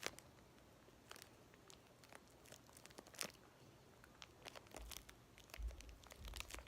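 Faint crinkling of a small plastic slime baggie being handled and closed, with scattered soft crackles and a few low handling bumps near the end.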